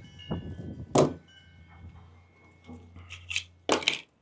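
Handling knocks and clatters from parts being worked on: a sharp knock about a second in, then a quick cluster of clacks near the end.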